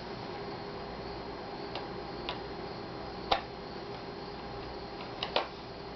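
A few short, sharp clicks, the loudest about three seconds in and a close pair near the end, from a screwdriver and small cover screws being worked into a laptop's plastic screen bezel, over a steady low hum.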